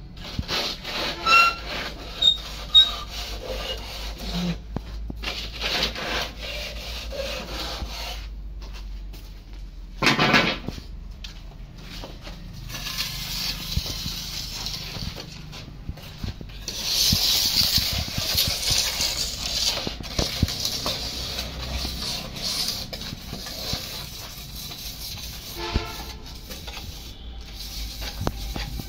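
Hand float scraping and rubbing over wet cement as a hand-made cement pipe is smoothed on its mould, with a few sharp knocks in the first seconds and a harsher stretch of scraping about two-thirds of the way through.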